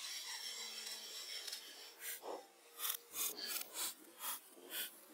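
Hand saw cutting a birch log: a steady rasp at first, then separate strokes about two a second from about two seconds in.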